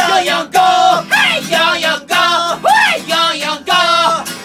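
Two men singing a comic pop song together to a strummed acoustic guitar, in short phrases.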